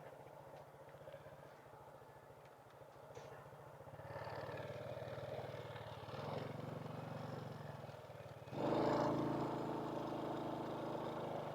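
Honda Wave 100 cc single-cylinder four-stroke motorbike engine running at road speed. It gets louder about four seconds in, then pulls harder and louder again about eight and a half seconds in.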